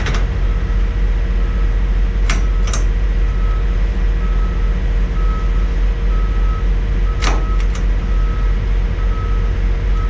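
Steady low rumble of idling diesel trucks, with a vehicle's reversing alarm beeping at about three beeps every two seconds from a second and a half in. A few sharp clicks stand out, two a couple of seconds in and two more about seven seconds in.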